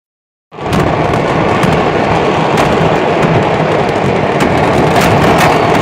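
Fireworks going off in a chain reaction: a dense, continuous crackling and popping with many sharp cracks, starting about half a second in.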